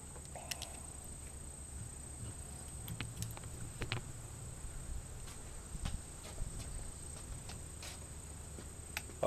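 Quiet outdoor background: a low steady rumble and a thin high steady whine, with scattered faint clicks and taps. No gunshot.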